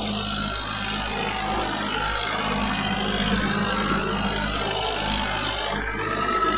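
Tractor engine running steadily under load, with the continuous grinding of a rotavator working dry soil.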